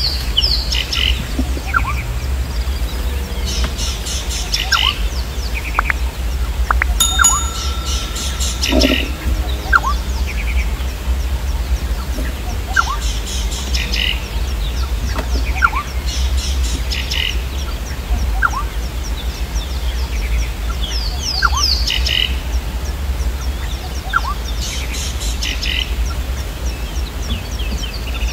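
Wild birds calling: a bright, rapid twittering phrase repeats about every four seconds over short rising whistles, with a steady low rumble underneath.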